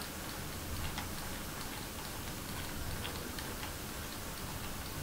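Roccat Kone Aimo Remastered mouse scroll wheel being rolled, its notches giving light, irregular ticks over a faint steady hiss. The wheel's stock encoder is faulty, which makes the scrolling stutter and jump backwards.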